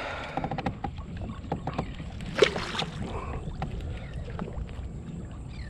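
Scattered knocks and clatter of handling in a kayak over a low wind rumble, with one louder, sharper sound about two and a half seconds in.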